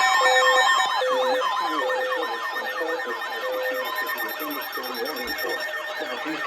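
Several electronic sirens sounding over one another in quick rising-and-falling yelps, with a short repeated beep about every second that stops about four seconds in.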